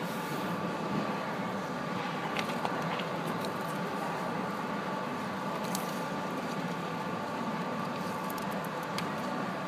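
Steady hum and hiss with two faint steady tones, and a few light clicks scattered through.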